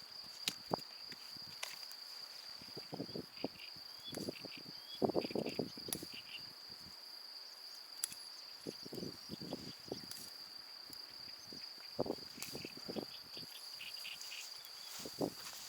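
Insects trilling steadily at a high pitch, with irregular rustles and knocks underneath.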